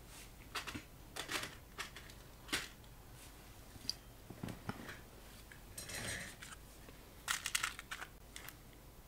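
Small glass cartridge fuses rattling and clicking in a clear plastic storage box as the box is fetched and handled: a series of short clicks and rattles, a longer rustle about six seconds in, and a quick cluster of clicks a little after seven seconds.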